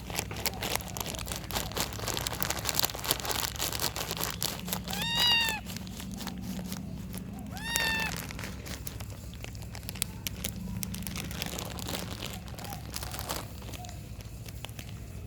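Kitten meowing twice, short high arched calls about five and eight seconds in, over a steady run of crinkling and clicking that stops shortly before the end.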